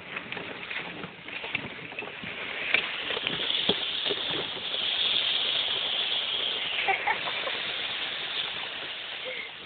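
Golf cart riding over a wooded track: a steady hiss of tyres and motion that grows louder from about three seconds in until about seven seconds in, with scattered knocks and rattles.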